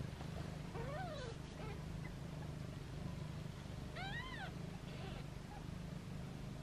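Kittens mewing: two clear high-pitched mews that rise and then fall in pitch, about a second in and about four seconds in, with fainter mews between them, over a low steady rumble.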